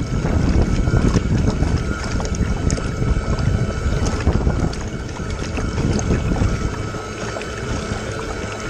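Radio-controlled bait boat running across choppy water: water rushing and slapping against its hull, with a thin steady whine from its electric drive motors underneath.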